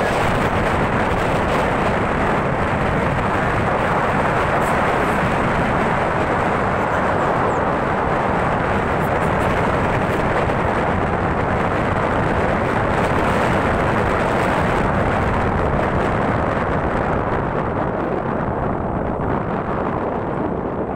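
Steady rush of wind buffeting the microphone over the road and engine noise of a moving vehicle, easing slightly near the end.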